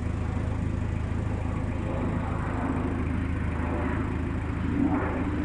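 A narrowboat's engine running steadily at cruising speed, a low even throb with a fast regular pulse.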